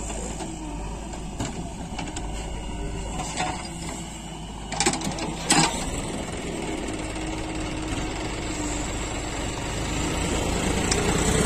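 Tractor diesel engine running steadily, with a few sharp knocks about five seconds in; the engine grows louder near the end.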